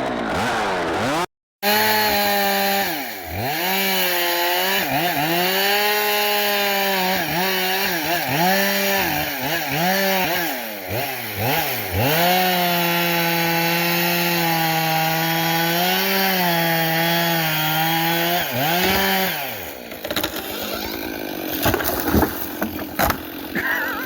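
Gas chainsaw cutting into a tree trunk, its engine pitch repeatedly dropping under load and climbing back as the throttle is worked, with a brief cut to silence about a second in. Near the end the saw falls away and a few sharp cracks are heard.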